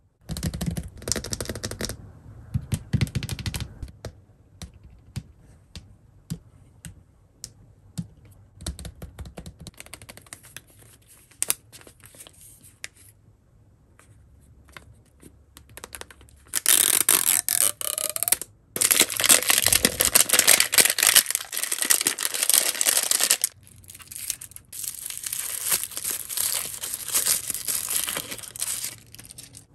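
Hands handling and opening an L.O.L. Surprise blind ball: rustling and scattered light clicks and taps at first. Then, from about halfway, loud tearing and crinkling as the ball's wrapping is torn off. Near the end comes more crinkling as a thin pink wrapper is opened.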